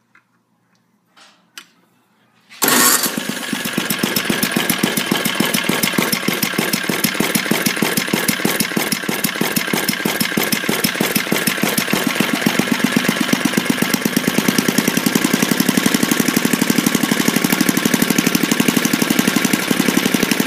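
5 hp Tecumseh single-cylinder small engine starting suddenly about two and a half seconds in after a few faint clicks, then running steadily on the bench with evenly spaced firing pulses. It runs smoothly with no rod knock, freshly revived with a cleaned carburetor and a new plug.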